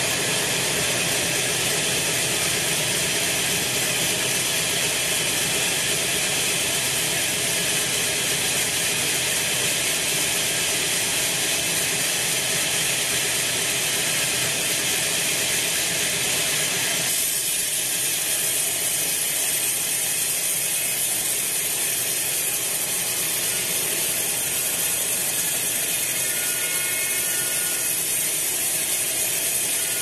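Sawmill band saw cutting through a teak log, a loud steady mix of running blade and machine noise. About 17 seconds in the sound changes, with the lower tones thinning out and the high hiss carrying on.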